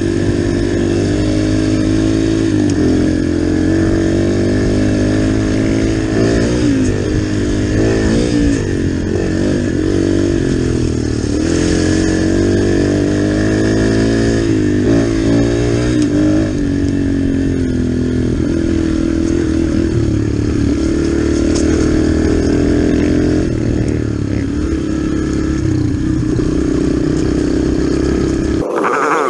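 Dirt bike engine running under load, its pitch rising and falling again and again with throttle and gear changes, heard from on the bike itself. The sound changes abruptly near the end.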